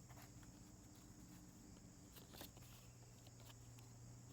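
Near silence: a faint steady hum with a few faint small ticks, the clearest about halfway through.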